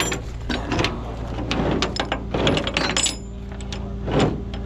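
Metal tow chain clinking and rattling in gloved hands as it is worked and hooked under a car, in a run of short irregular clanks, the loudest a little past four seconds in. Under it runs a steady low hum.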